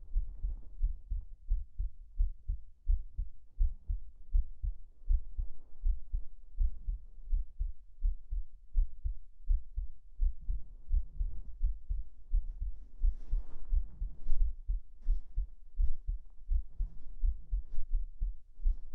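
A human heartbeat heard up close through the chest, a steady run of low, soft thumps. Brief rustles of bedding fabric come in over it in the second half.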